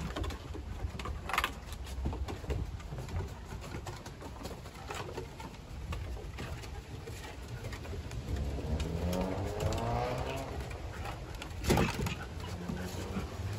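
Young shepherd-husky mix puppies and an adult dog growling and grumbling in tug-of-war play, with a longer pitched whine-like cry about nine seconds in. Two sharp knocks, one near the start and one near the end, from paws or toys hitting the wooden deck.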